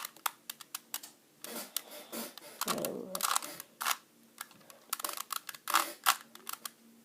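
Plastic Rubik's Cube faces being turned by hand: a run of quick clicks and clacks. About three seconds in there is a duller, lower thump.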